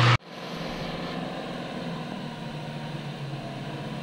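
Diesel engine of a heavily loaded 12-tyre lorry running steadily as the truck approaches along the road, a low even hum.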